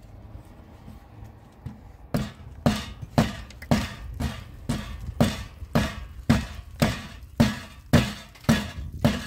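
Hatchet striking the top edge of a plywood wall panel in a steady rhythm of sharp wooden knocks, about two a second, starting about two seconds in.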